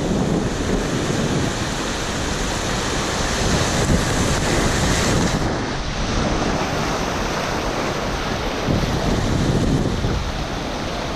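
Steady rush of whitewater in a river rapid, with wind buffeting the microphone.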